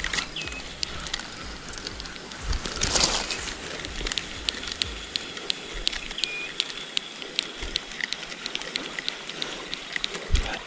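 Fishing tackle being handled: irregular small clicks from a spinning reel and rod, with a brief louder rustle about three seconds in.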